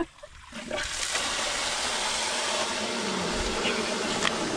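Water under pressure gushing from the open end of a black polythene stock-water pipe, starting suddenly about a second in and then running steadily: the line is still live because the supply up the hill was not turned off.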